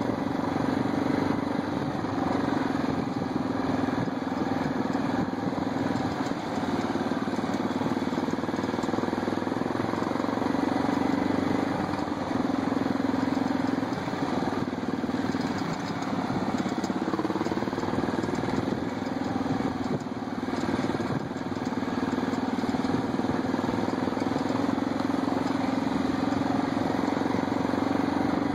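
ATV engine running steadily at cruising speed along a dirt trail, holding an even pitch with small dips now and then.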